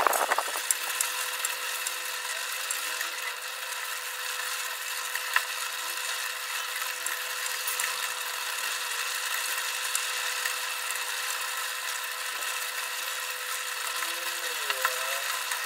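Thick coconut-milk sambal bubbling in an aluminium pot, with many small pops and ticks as a wooden spatula stirs it, over a steady hiss that carries a constant tone.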